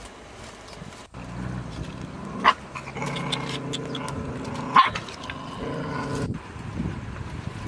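A dog growls low and drawn-out for several seconds. Two sharp knocks come through it, about two and a half and about five seconds in.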